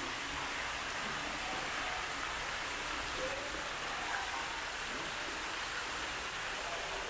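Mall fountain's single vertical water jet splashing back into its shallow pool at nearly full flow: a steady hiss of falling water.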